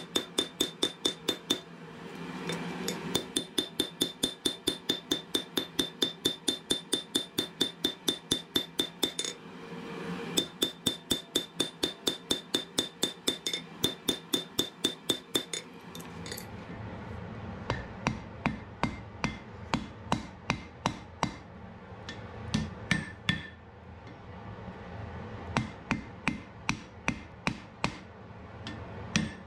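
A hand hammer strikes a red-hot wrought-iron axe head on an anvil, about three ringing blows a second in two long runs with a short pause between them. About halfway through, the blows become slower and more irregular over a steady low hum.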